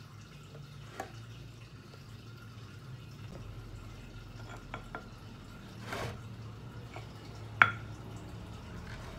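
A few light knocks and one sharper clack near the end as a stone mortar and a plate are handled on a table. A steady low hum runs underneath.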